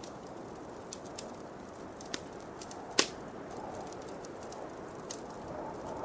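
Wood fire crackling in a fireplace: scattered sharp snaps, the loudest about three seconds in, over a steady low rush of wind.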